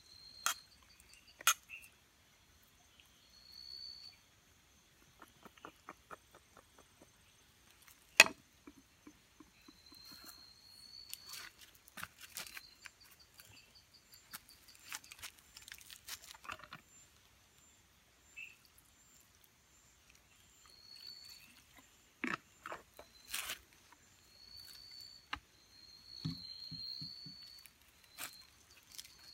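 Night jungle insects: a faint steady high trill, with short chirps repeated every few seconds. Scattered sharp clicks and knocks sound over it, the loudest about eight seconds in.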